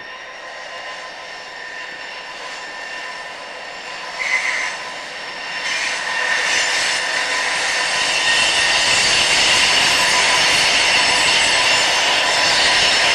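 Three EMD SD45-2 diesel locomotives, each with a 20-cylinder engine, running as a freight train approaches and passes, growing louder and then holding steady, with a steady whine over the engine and wheel noise. A brief higher-pitched sound stands out about four seconds in.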